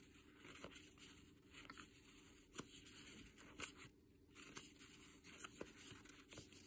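Faint rustling of a handful of die-cut stickers being shuffled and fanned through by hand, with a soft tick about once a second as their edges flick against each other.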